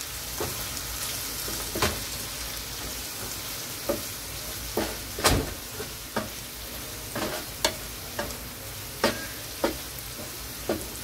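Shredded potatoes sizzling in oil in a nonstick frying pan while being stirred and tossed with a wooden spatula, which knocks and scrapes against the pan at irregular intervals over a steady hiss. The loudest knock comes about five seconds in.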